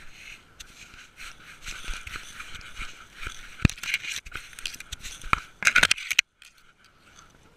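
Dry fallen leaves and twigs crackling and rustling as a cat walks through them, brushing against the GoPro mounted on it, with a run of sharp snaps. The crackling stops abruptly about six seconds in.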